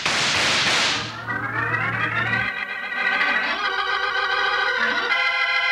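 A loud burst of noise for about the first second gives way to an organ chord sliding upward, then held organ chords that shift twice: a radio-drama organ bridge marking the break into the commercial.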